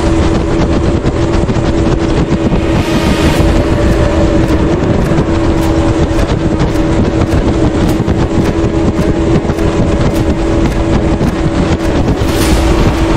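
Motorboat engine running steadily at cruising speed, about 36 mph, a constant hum under heavy wind on the microphone and the rush of the water. Through the middle comes a string of short slaps, about two a second.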